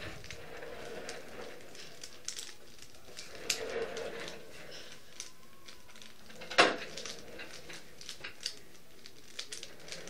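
Plastic Rubik's cube being turned by hand: a quick, irregular run of clicks and clacks as its layers snap round, with one louder clack about two-thirds of the way through.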